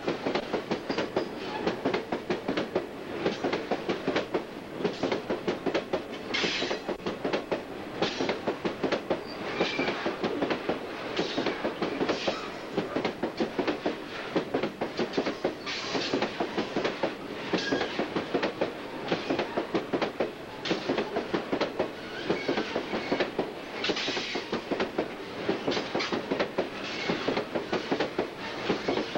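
Freight wagons of an iron ore train rolling past, wheels clicking steadily over the rail joints in a continuous clickety-clack. Short higher metallic squeals from the wheels come through now and then.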